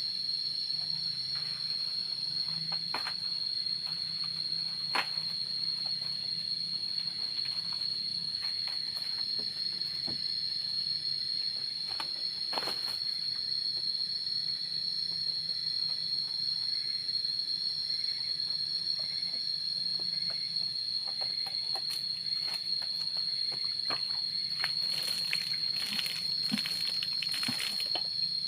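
Insects giving a steady, unbroken high-pitched drone, with scattered small clicks and a spell of rustling near the end.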